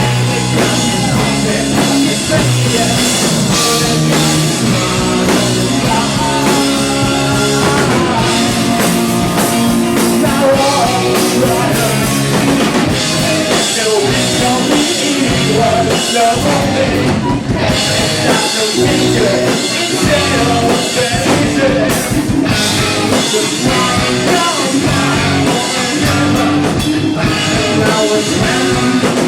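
Live rock band playing a song: drum kit and guitars with a singer's voice over them, loud and continuous.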